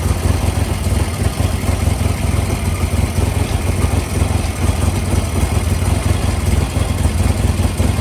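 Vintage British motorcycle engine idling steadily through its new stock-pattern mufflers, a low, even exhaust note with no revving.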